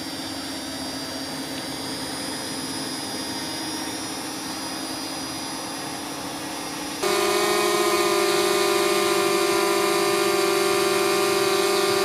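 A Parrot Anafi quadcopter hovering, a steady propeller hum. About seven seconds in it cuts to a DJI Mavic Air hovering, a clearly louder and higher-pitched propeller whine.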